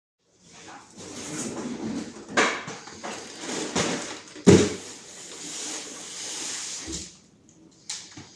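Rustling, sliding and knocking of a cardboard Lego set box being handled and opened, with a sharp knock about four and a half seconds in.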